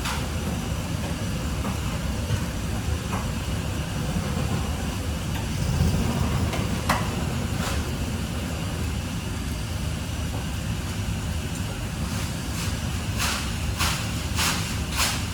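A steady low rumble with a few sharp clicks and knocks scattered through it, and a quick run of several louder knocks near the end.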